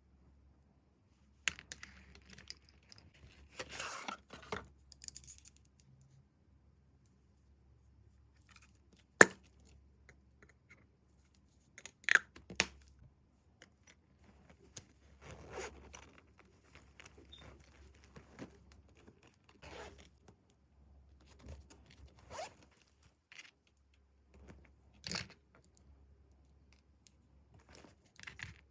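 Makeup packaging being unboxed by hand: intermittent tearing and rustling of paper and cardboard, with scattered sharp clicks and taps, the loudest about nine seconds in and again around twelve seconds.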